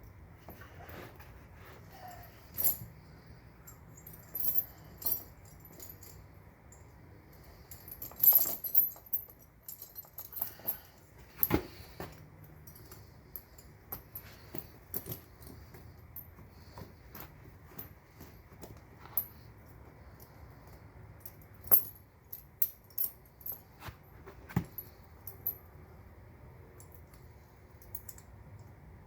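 Steel ATV tire chain links clinking and jangling as the chain is handled, in scattered sharp metallic clicks with a louder cluster of clanks partway through.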